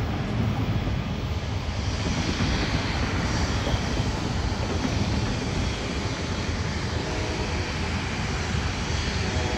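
Jet engines of an Airbus A350 airliner taxiing, a steady rumble with a hiss above it and a faint whine coming in near the end. The first second or two still carries the low rumble of an approaching passenger train.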